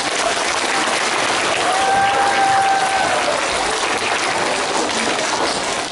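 Audience applauding, a steady patter of many hands clapping in a large hall.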